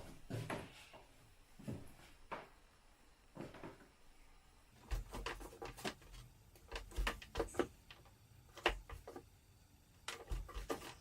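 Irregular knocks, clicks and light clatter of things being handled in a kitchen, with a quick run of sharp clicks and a few low thumps in the middle.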